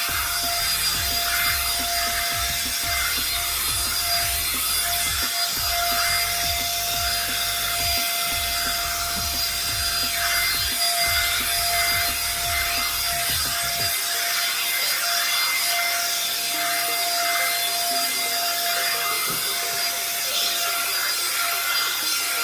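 One-step hair dryer and styler (hot-air brush) running steadily, a constant blowing noise with a high motor whine, as the brush works through hair. A low rumble under it drops away about two-thirds of the way through.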